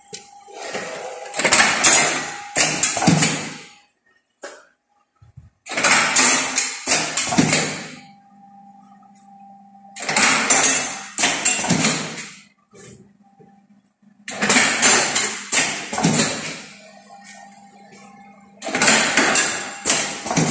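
Automatic lead-bullet casting machine cycling: loud bursts of mechanical noise, each about two seconds long, come roughly every four seconds, with a steady motor hum between them.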